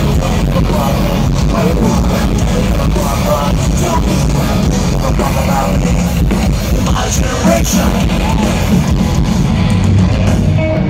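A live nu-metal band playing loud amplified music: electric guitars, drums and vocals, heard from within the crowd.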